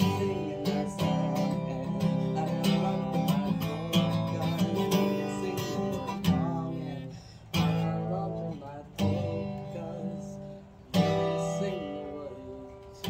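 Acoustic guitar music: strummed chords, with the last three chords about a second and a half apart, each struck sharply and left to ring out and fade.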